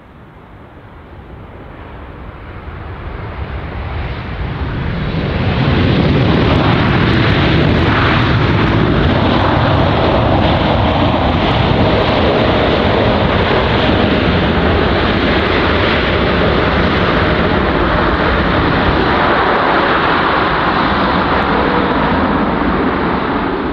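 Jet airliner passing close: engine noise grows louder over the first five seconds or so, then holds loud and steady, with a faint steady whine running through it.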